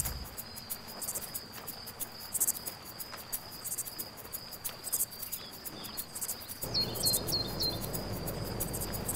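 Crickets chirping steadily in a quiet nature ambience, with four short, high, rising chirps in quick succession about seven seconds in.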